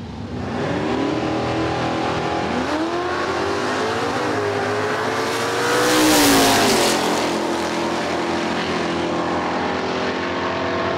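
Drag racing cars launching and accelerating hard down a drag strip, engine pitch climbing twice and then holding high. About six seconds in one car passes close by with a loud rush, then the engines carry on from further down the track.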